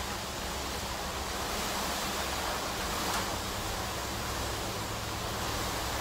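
Steady rushing noise of typhoon wind and rain, with a faint tick about three seconds in.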